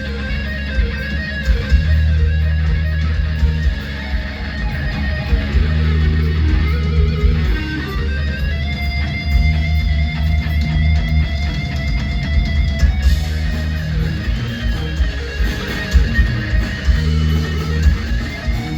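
Heavy-metal electric guitar solo played loud over bass and drums, with long held notes, some of them bent or wavering in pitch.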